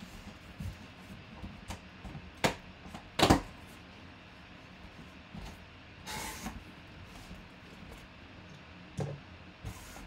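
Cardboard shipping box being handled and opened by hand: a few sharp knocks and thumps of the box and its flaps, the loudest a little over three seconds in, and a short rustle around six seconds in.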